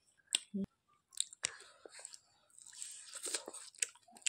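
Close-up chewing and biting of fried fish: scattered wet mouth clicks and crunches, thickening into a stretch of steady crunching about two and a half seconds in. A very short vocal sound just after the start.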